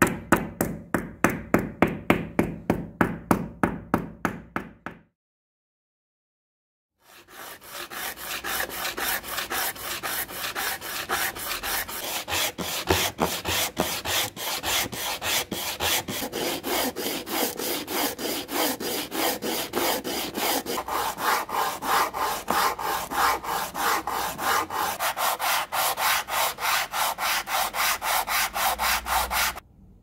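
A hardwood block with light inlay strips rubbed back and forth by hand on a sheet of coarse sandpaper: quick, even rasping strokes, a few a second, for most of the time, stopping just before the end. Before the sanding, about five seconds of rapid wood-on-wood knocking, then a two-second silence.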